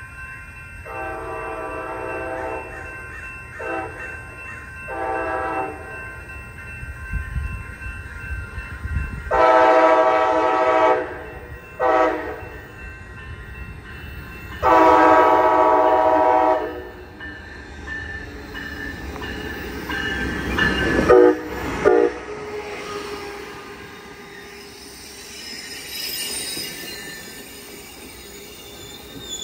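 COASTER diesel locomotive's horn sounding in two series of long and short blasts for the grade crossing, the second series louder as the train nears. The train then rolls past with wheel clicks over the crossing. Its wheels and brakes begin to squeal as it slows into the station.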